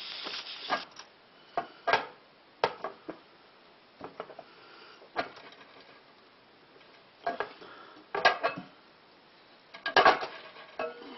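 Metal clanks and knocks from the lid of an aluminium pressure canner being handled and worked loose, several separate strikes with a louder cluster of clatter about ten seconds in. A short hiss fades out right at the start.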